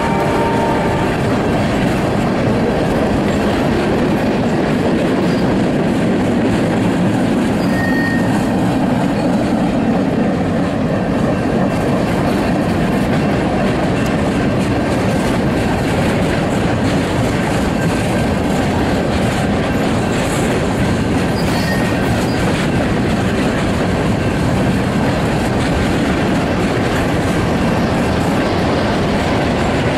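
Freight train of loaded flatcars rolling past close by, with the steady clickety-clack of wheels over the rail joints.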